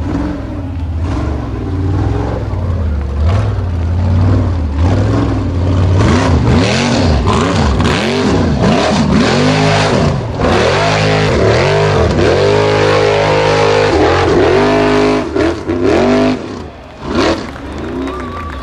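Formula Offroad buggy's engine revved hard under load while clawing up a steep dirt hill. The revs surge up and down over and over, more than once a second, and briefly drop away near the end.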